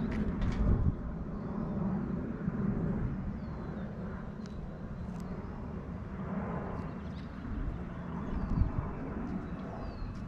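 Residential street ambience: a steady low rumble of distant traffic, with faint short high chirps and clicks scattered through it and a couple of louder low surges, one about half a second in and one near the end.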